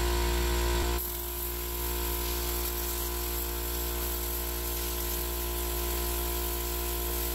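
Air compressor running with a steady, pitched drone. About a second in, the Tornador air-cleaning gun starts blowing, adding a strong high hiss of compressed air as it is worked over the door panel.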